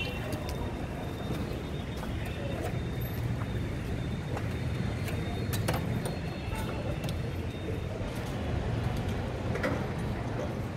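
Market street ambience: a steady low rumble of road traffic, with scattered faint clicks and knocks.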